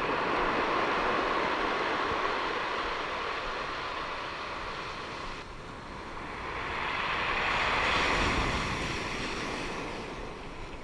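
Ocean surf breaking and washing up the beach, a steady rush that dips about halfway through and swells again to a peak about eight seconds in.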